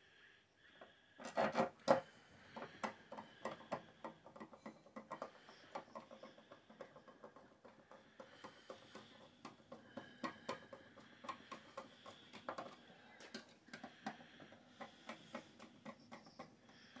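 Irregular light clicks, taps and knocks of PC hardware being handled during assembly, with a louder cluster of knocks about a second and a half in.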